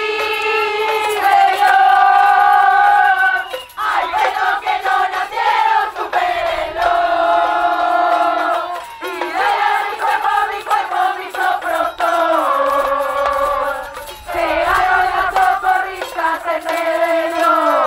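A group of women's voices singing a chant together in phrases of a few seconds, holding long notes between short breaths.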